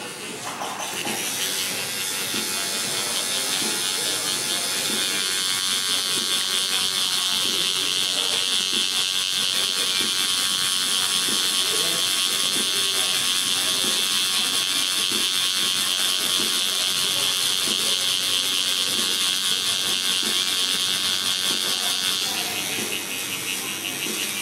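Tattoo machine buzzing steadily while needling colour into the skin of a forearm. It starts about a second in and stops a couple of seconds before the end.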